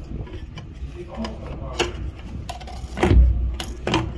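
Clicks and knocks of a removed Samsung washing machine motor being handled, its metal housing and bracket knocking, with a heavier thump about three seconds in.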